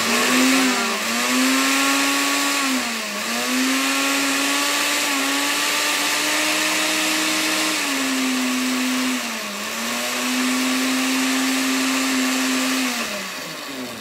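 Countertop blender running, churning water-soaked scrap paper into pulp. The steady motor tone dips in pitch briefly a few times and winds down near the end.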